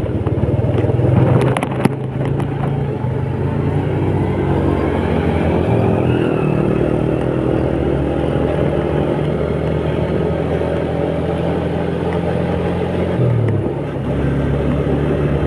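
Honda Astrea Prima motorcycle's small engine running steadily under way at speed, with road and wind noise. Its pitch dips briefly and then picks up again about 13 seconds in.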